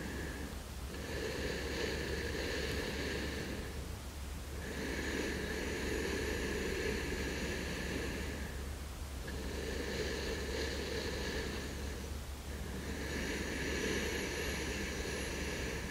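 Slow, deep sleep breathing, breaths of three to four seconds each with brief pauses between them, about four in all, over a steady low hum.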